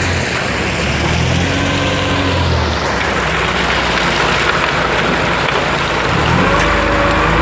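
An engine running steadily, its low hum changing pitch about three seconds in and again near the end.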